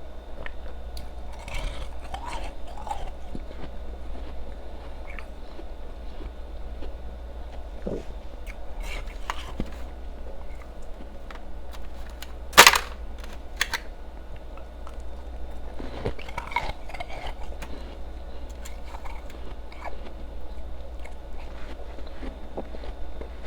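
Ice being chewed close to the microphone: teeth crunching through ice in scattered bites, with one loud sharp crunch about halfway through.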